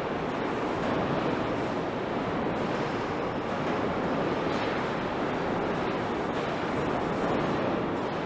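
Steady rushing noise with no distinct events or changes.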